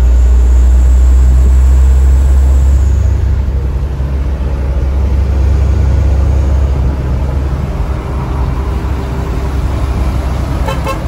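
Steady low drone of engine and road noise inside a moving truck's cab at highway speed, easing slightly about three seconds in.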